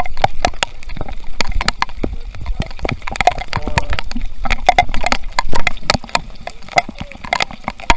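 Heavy rain, large drops striking close to the microphone as an irregular patter of sharp taps, several a second, over a low rumble.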